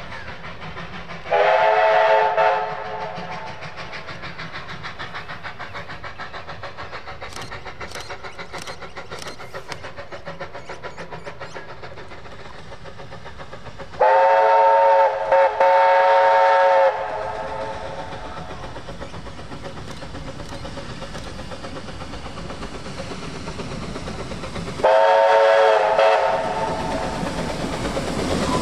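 Five-chime steam whistle (VR 5 chime) on Puffing Billy's NA class 2-6-2T steam locomotive 12A, sounded three times as a multi-note chord. There is a short blast about a second in, a longer blast of about three seconds with a brief break in the middle, and a third blast of about a second and a half near the end. The steady rhythmic running of the moving train continues underneath.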